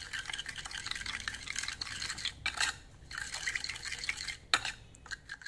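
Metal spoon stirring a thin fish-sauce mixture of sugar, minced garlic and chili in a bowl: steady liquid swishing and the spoon scraping against the bowl, with a few sharper clinks.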